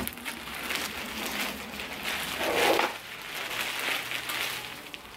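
Plastic wrap crinkling and cardboard rustling as a wrapped doormat is pulled from its shipping box and handled, in irregular swells, loudest about two and a half seconds in.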